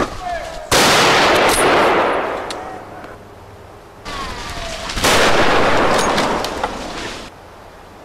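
Two rifle shots about four seconds apart. Each starts with a sharp crack and is followed by a long rolling echo that dies away over a couple of seconds. The second echo is cut off suddenly.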